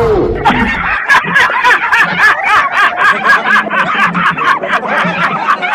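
A person laughing in a long, fast, even run of short high-pitched bursts, about five a second, starting about a second in.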